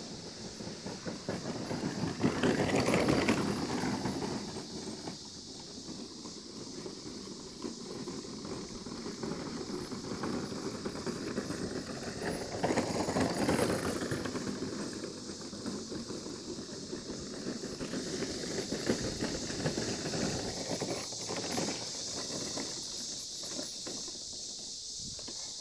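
A red plastic child's wagon rattling and bumping over grass and dirt as a dog pulls it, with footsteps through the grass. It is louder about three seconds in and again around thirteen seconds in.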